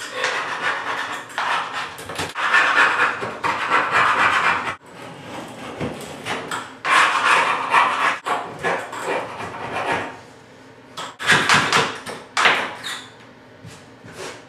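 Metal paint scraper blade scraping old, deteriorated caulk out of the joint between a bathtub and its tile wall. It makes repeated rasping strokes, each one to two seconds long, with short pauses between them.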